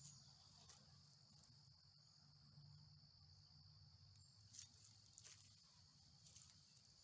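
Faint, steady, high-pitched insect buzz that stops about four and a half seconds in, with a few soft footstep crunches on the woodland floor.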